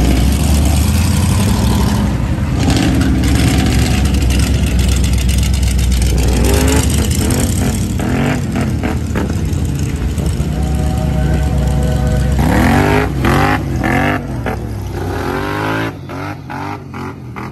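ATV engines running and revving hard in mud and water, with repeated rising revs over a low steady engine rumble.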